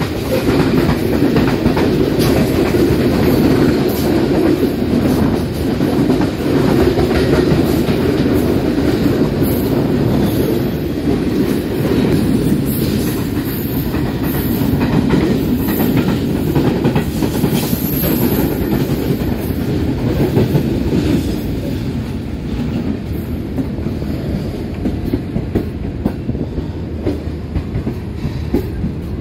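Train running on the rails, heard from aboard a moving passenger train, with wheels clattering over rail joints as a goods train passes on the next track. The noise is louder for the first twenty seconds or so, then eases.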